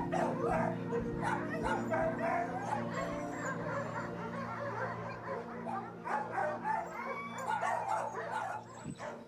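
Many dogs barking and yipping in shelter kennels over background music with held low notes, growing fainter toward the end.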